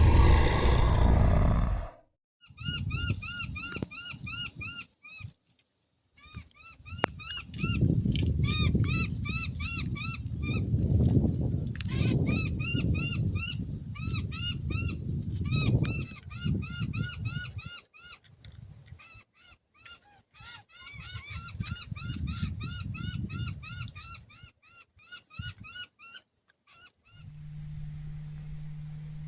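A flock of birds calling over and over in short rising-and-falling notes, over a low rumble. A loud rush opens it, and a steady low hum takes over near the end.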